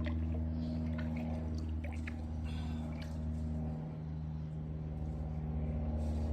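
A steady low machine hum with a few faint clicks and drips.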